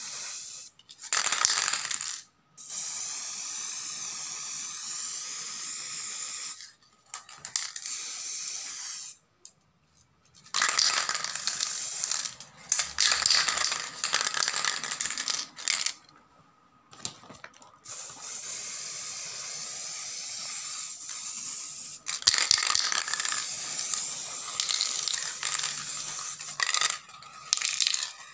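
Aerosol spray-paint can hissing in long bursts of a few seconds each, with short breaks between, as a wire basket is coated with paint.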